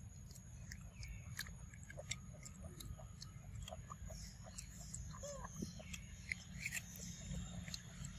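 A macaque chewing and biting into a mango: small irregular clicks and smacks of its mouth on the fruit, over a faint low rumble.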